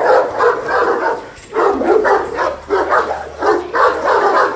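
Fila Brasileiro guard dogs barking aggressively in rapid, overlapping barks at a man threatening them across the kennel fence, with a brief pause about a second in.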